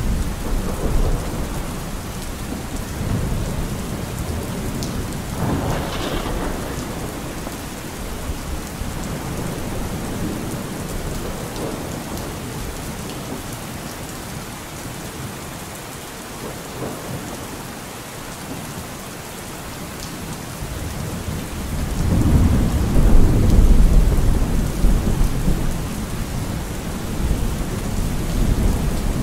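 Steady rain with low rolling rumbles of thunder. The loudest rumble swells up about three-quarters of the way through and lasts a few seconds.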